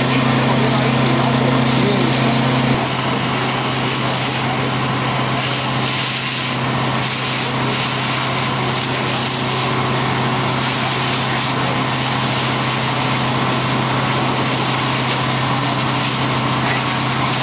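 A fire engine's pump engine running with a steady hum under a loud, continuous rushing hiss of hose streams and the fire. About three seconds in, part of the hum stops and the level dips slightly.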